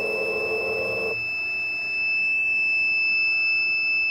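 Steady high-pitched beep from an SF-500 digital force gauge, its alarm going as the push exceeds its 500 N rating. For about the first second the stepper motor driving the mill axis into the gauge buzzes under the load, then stops abruptly.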